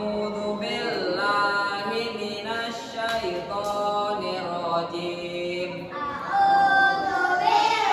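A group of children singing together in unison without accompaniment, in long held notes.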